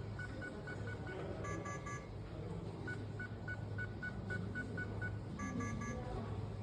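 Electronic calling tone from the smart lock's phone app as it connects to the lock's live video: a single high beep repeated about four times a second, twice giving way to a short run of beeps on a three-note chord. A low steady hum lies underneath.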